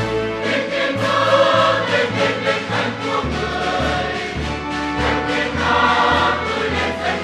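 A large mixed choir of men's and women's voices singing a Vietnamese Catholic hymn in full harmony over held low notes.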